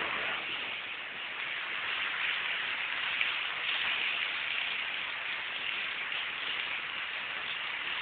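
Heavy rain pouring down steadily, an even hiss of drops splashing on wet pavement.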